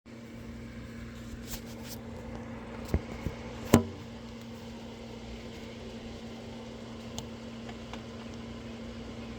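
A steady electrical-sounding hum, with three sharp knocks about three seconds in, the last the loudest.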